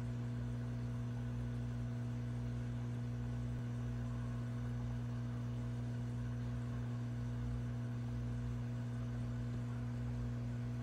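Steady low mains hum over a faint hiss, with no other sounds.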